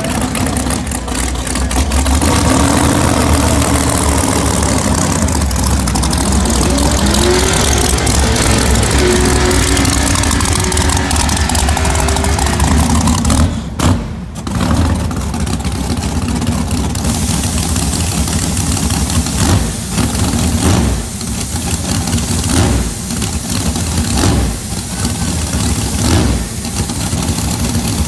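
Loud drag-racing engines: a car's engine running hard as it launches away in tyre smoke. Then a supercharged Corvette drag car's big engine runs at a lopey idle with repeated dips, and a nitrous purge hisses over it.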